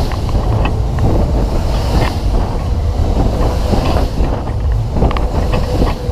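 A PWS Twist fairground ride running at speed, heard from one of its spinning cars: a steady low rumble with sharp knocks and clicks every so often, and wind buffeting the microphone.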